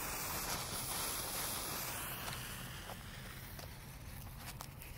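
Lit fuse of a small flashing strobe firework burning with a steady hiss that fades over the second half.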